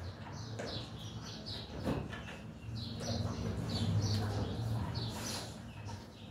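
Small birds chirping, a run of quick falling chirps repeating several times a second. About three seconds in, a steady low hum joins underneath.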